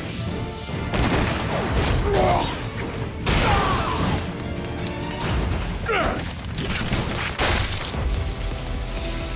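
Action-scene sound effects over dramatic score music: several heavy booms and crashes, with sweeping whooshes between them, over a steady low rumble.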